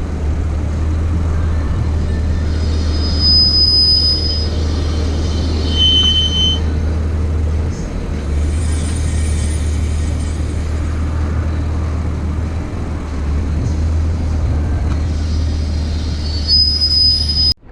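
Steady low drone of a Toyota A90 Supra on the move, with brief high-pitched squeals a few times: the abnormal noise that has suddenly appeared in the car's suspension.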